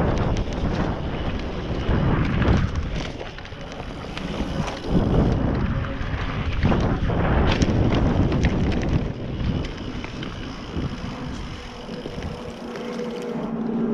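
Wind rushing over a helmet or handlebar action-camera microphone as a full-suspension mountain bike descends a dirt trail fast, with tyres rolling on packed soil and leaves and the bike knocking and rattling over bumps. A faint steady hum comes in near the end.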